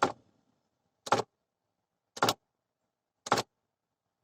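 A failing heater/AC blend door actuator in a 2005 Ford Explorer's dashboard clacking. It knocks in an even rhythm, about once a second, four times.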